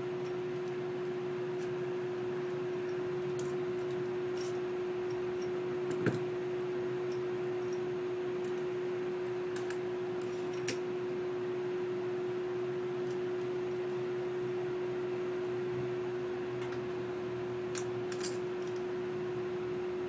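A steady hum in the room, with a few faint clicks and taps of the metal parts of a Schlage deadbolt being fitted together by hand; the sharpest click comes about six seconds in.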